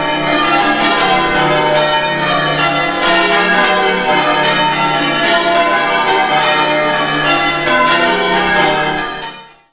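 A ring of ten church bells being rung in changes: rapid, evenly paced strikes overlapping into a continuous peal. The ringing fades out at the very end.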